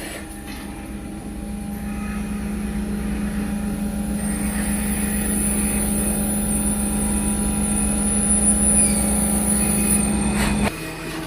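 CNC machine running: a steady hum with a high whine above it, growing gradually louder, then dropping off abruptly near the end.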